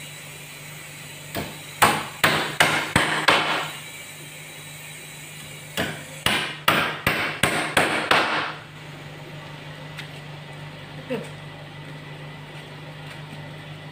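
Hammer blows nailing a wooden shipping crate together: two quick runs of about three strikes a second, the second starting about two seconds after the first ends.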